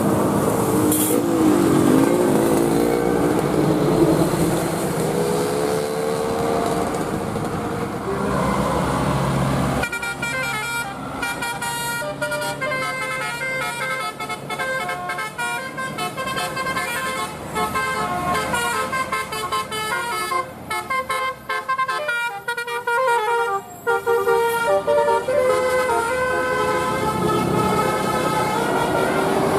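A bus's 'telolet basuri' multi-note musical air horn plays a fast tune of short notes, starting about a third of the way in. Before it, there is a noisy vehicle rumble with a few gliding tones.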